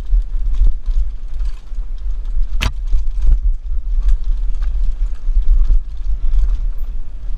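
Mongoose Pinn'r mountain bike rattling and clattering over a rough downhill trail, with a sharp knock about two and a half seconds in. Wind buffets the helmet-mounted camera's microphone as a heavy low rumble.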